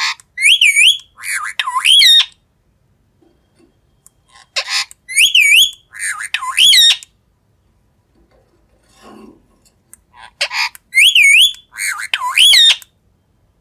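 Green parrot giving shrill, wavering whistled calls. A similar phrase of several rising-and-falling notes comes three times, with short pauses between.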